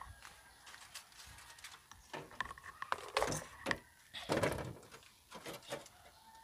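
Rustling and knocks from a wooden, wire-meshed rabbit cage being handled, with two louder spells of rustling in the middle.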